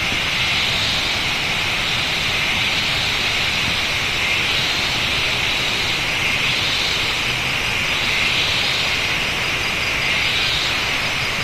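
Steady rushing of a waterfall, with a constant high-pitched drone over it that swells slightly now and then.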